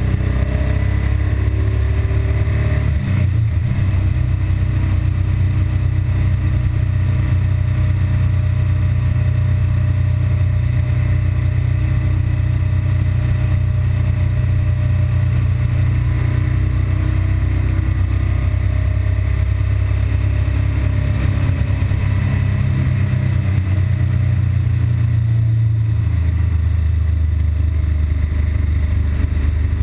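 BMW R1200GS Adventure's boxer twin engine running steadily under way, its note shifting about three seconds in and again near the end. The engine is running normally here, before the intermittent rough-idle fault sets in.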